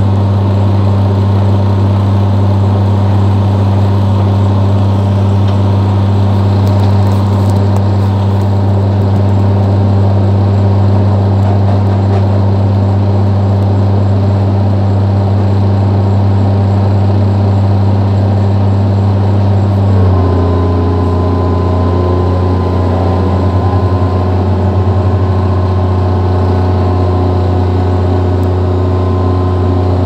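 Hydraulic excavator's diesel engine running steadily, heard from inside the operator's cab. About twenty seconds in, its note shifts slightly lower and becomes fuller.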